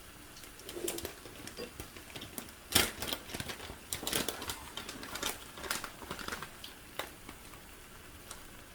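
Irregular clicks and clatter of cooking utensils working food on an iron griddle, with one louder knock about three seconds in.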